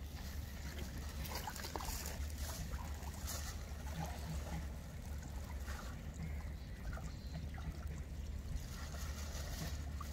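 Water sloshing and trickling as people wade and handle a fine-mesh fishing net in shallow water, with irregular splashy swishes over a steady low rumble.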